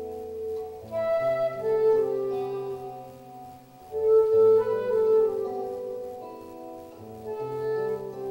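Live band playing a slow instrumental introduction: sustained held chords that change about every three seconds.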